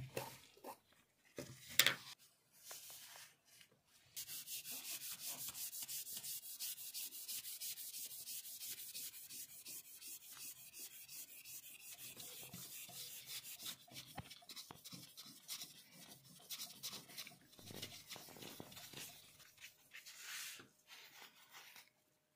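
Cloth rubbed quickly back and forth over a steel putty-knife blade with metal polishing paste, a fast, even rubbing hiss that starts about four seconds in and turns to looser strokes in the second half. Before it, a few handling knocks and one sharp tap about two seconds in.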